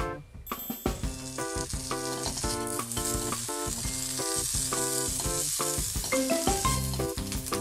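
Bacon strips sizzling as they start to fry in a hot frying pan, the hiss coming up about half a second in, over background keyboard music.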